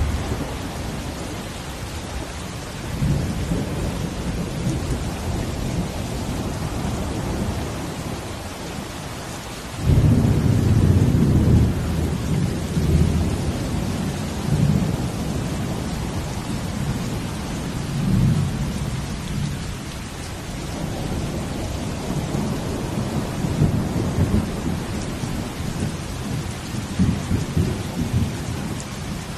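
Steady falling rain with deep rumbling swells of ocean waves underneath, the biggest surge coming in suddenly about ten seconds in.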